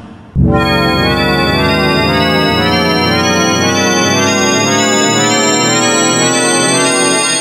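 A sustained organ-like electronic chord that starts suddenly about half a second in and is held steady, with a slow rippling shimmer through its tones.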